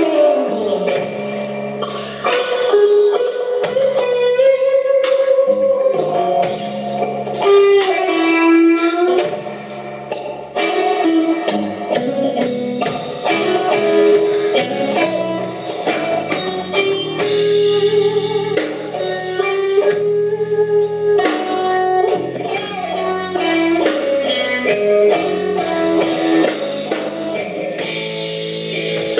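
A live band playing a slow blues, an electric guitar leading with bending, held notes over bass guitar and drum kit.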